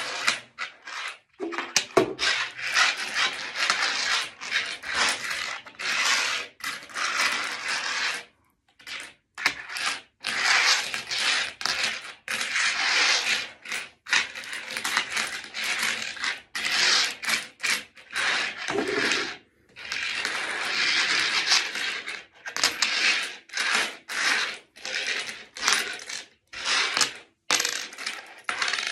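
Metal coins clinking and scraping against each other and a wooden tabletop as hands slide and sort a large pile of Turkish 1-lira and 50-kuruş coins, in bursts with short pauses.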